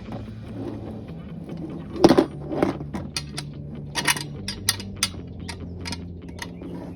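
Metal parts of a brake pedal assembly clinking and knocking a dozen or so times while the pedal is worked back into its bracket, over steady background music.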